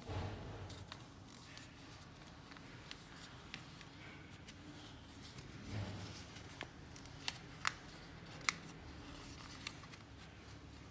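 Sheet of origami paper being handled and folded by hand: faint rustling and rubbing, with a few sharp crackles of the creased paper a little past the middle.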